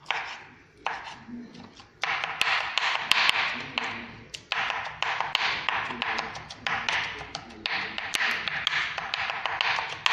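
Kitchen knife chopping diced tomato on a wooden cutting board: a few scattered taps at first, then steady fast chopping of about four strokes a second from two seconds in.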